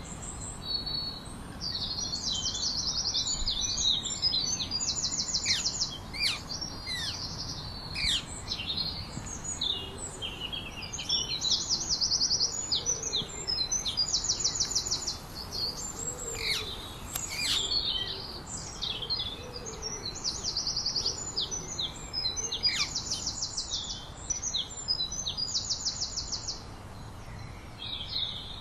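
Songbirds singing. One bird repeats a fast, high trill about a second long every two to three seconds, while others add quick chirps and short down-slurred whistles between its trills.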